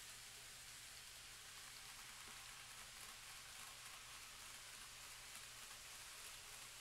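Near silence: a faint, steady hiss with a low hum beneath it.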